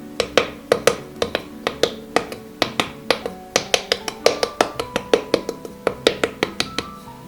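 Background music of plucked acoustic guitar, with notes picked several times a second.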